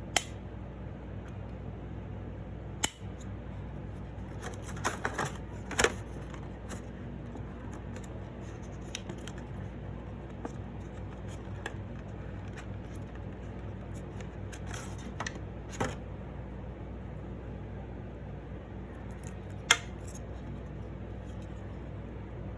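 Hands handling small plastic parts, such as an earbud case and its packaging: a few sharp clicks and short bursts of clatter spaced out by long gaps, over a steady low hum.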